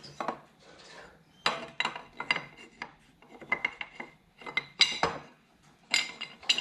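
Aluminium brackets clinking and scraping against the steel tilt pin and the outboard's metal clamp bracket as they are fitted by hand: a string of irregular sharp metallic clinks with short rings.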